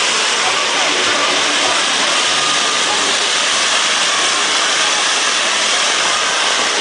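Ground fountain fireworks spraying sparks with a steady, loud hiss.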